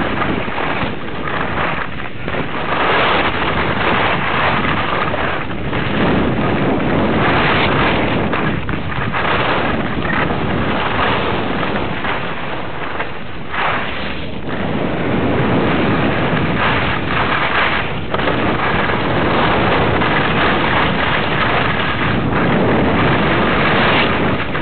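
Wind rushing over the microphone of a camera carried by a skier at speed, mixed with the hiss of skis running over the snow, swelling and easing repeatedly through the turns.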